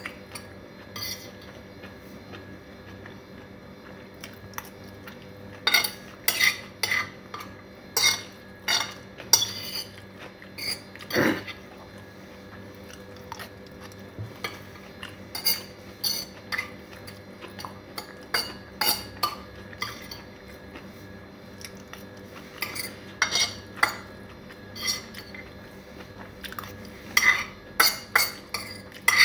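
Metal fork clinking and scraping against a white ceramic plate while picking up noodles: irregular clusters of sharp clicks over a faint steady hum.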